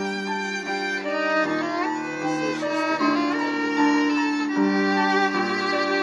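Violin played live with the bow: a melody of held notes and quicker moving passages.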